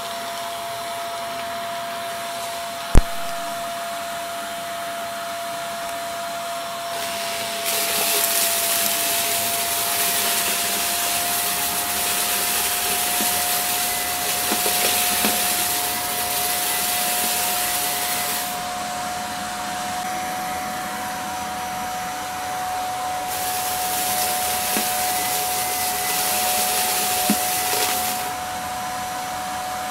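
Shark Navigator upright vacuum running with a steady motor whine whose pitch creeps slightly upward, its brushroll sucking up crunchy debris from a shag rug. A single sharp click comes about three seconds in, and the rush of air and debris grows louder for two long stretches, about 8 to 18 seconds and about 23 to 28 seconds.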